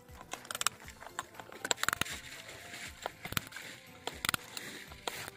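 Irregular clicks and light knocks of a wrench and hands working the plastic cable-port glands on a fiber optic dome enclosure base, with a cluster of sharp clicks about two seconds in and another near four seconds.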